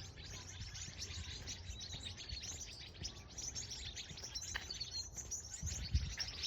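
Many small birds chirping and singing together in a tree, a dense rapid twittering, over a low rumble of background noise.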